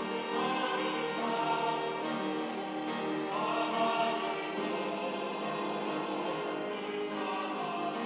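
Mixed church choir of men's and women's voices singing a sacred anthem in several parts, holding sustained chords, with new phrases entering about a second in, around three seconds in and again near seven seconds.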